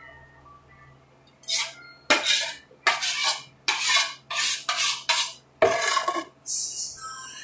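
Two steel putty knives scraped blade against blade in a run of about eight quick strokes, starting about a second in, wiping wet plaster putty off one blade with the other.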